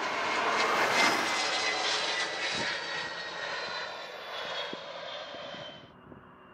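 Cessna Citation Longitude business jet's twin Honeywell HTF7700L turbofans passing close by on landing: jet noise with a whine that falls slowly in pitch. Loudest about a second in, it fades, then cuts off abruptly near the end.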